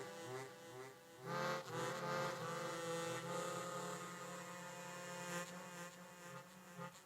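Suzuki Sirius S48B bass chromatic harmonica played through a Fender Micro Mustang headphone amp: a few short low notes, then a long low note held from about a second in, fading near the end.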